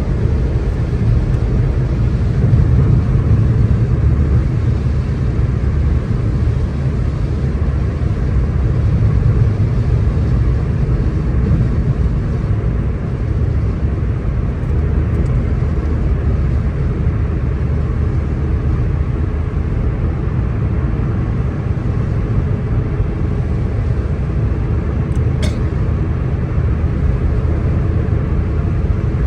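Car driving at motorway speed on a rain-wet road: a steady low rumble of tyres and engine. A brief high squeak about 25 seconds in.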